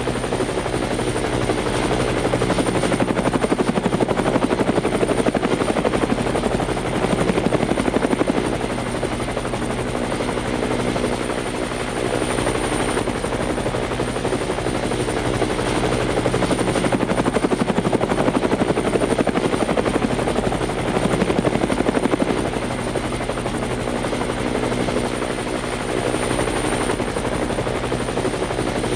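Helicopter running steadily: a fast, continuous rotor chop over an engine drone, with a thin high whine.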